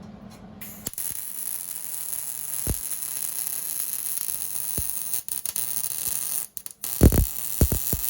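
Electric welder's arc hissing steadily on exhaust pipe, starting about half a second in and breaking off briefly twice. Near the end comes a quick series of low thumps.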